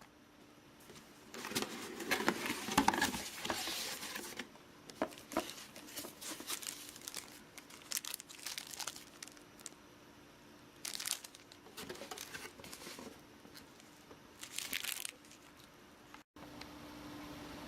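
Plastic packaging crinkling and crackling as it is handled, in several irregular bursts, the loudest a few seconds in, over a faint steady hum.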